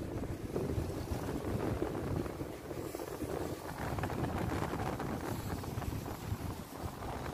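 Wind buffeting the microphone outdoors: a steady low rush that rises and falls.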